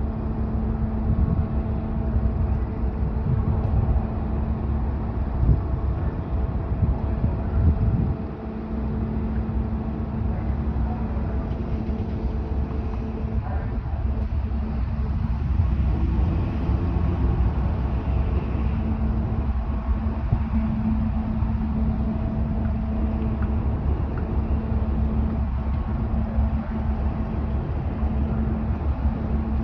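Large car ferry's diesel engines droning steadily while it comes alongside the quay, a low rumble with a steady hum over it.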